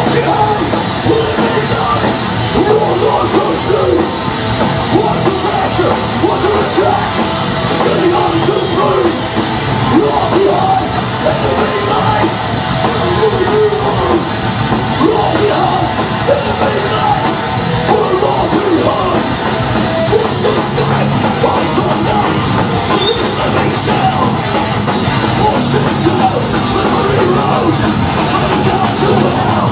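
Hardcore band playing live: distorted electric guitars, bass and drums under a shouted vocal, loud and dense throughout.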